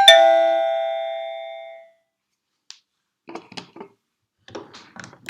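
Plug-in wireless doorbell receiver sounding a single bell-like chime at its selected tone. The chime strikes sharply and rings out, fading away over about two seconds.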